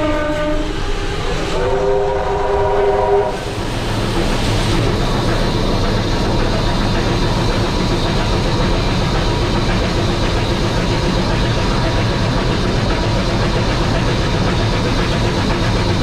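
A train whistle sounds two blasts of several notes at once, the second cutting off about three seconds in. Then a train runs steadily at speed, its wheels rumbling on the rails.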